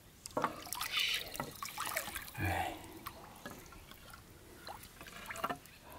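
Light splashing and dripping of shallow lake water as hands and a landing net move around a large rainbow trout held in the water, in several short, separate splashes.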